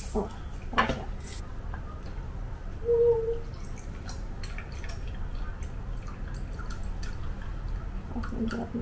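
Canned matcha drink with popping boba poured into a glass mug over ice cubes, trickling and dripping in a thin stream from about four seconds in. A few sharp clicks come in the first second.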